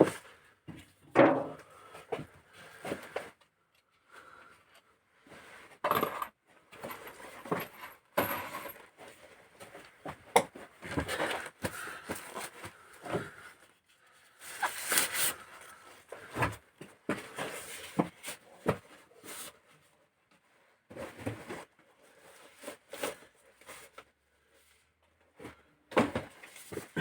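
Metal tools and engine parts clinking and knocking irregularly, with short pauses between, as the valve gear of a 16-valve VAZ Priora cylinder head is taken apart by hand.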